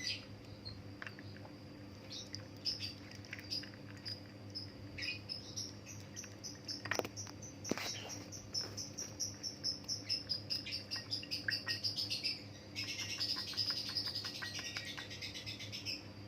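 Small bird chirping in quick series of short high calls, speeding into a fast run in the middle and a denser twittering near the end, over a steady low hum; two light knocks about seven seconds in.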